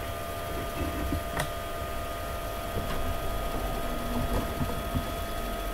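Steady background hum with faint high whining tones, and a single sharp click about a second and a half in.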